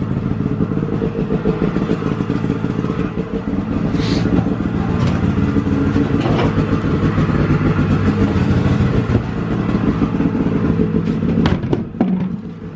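A vehicle engine running steadily at a low, even speed, with a couple of sharp clicks near the end.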